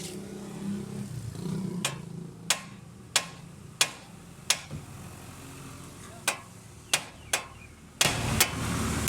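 A series of sharp metallic knocks, like metal being struck with a hammer during suspension work: about six strikes roughly two-thirds of a second apart, then a few more, uneven. A loud hissing noise sets in about a second before the end.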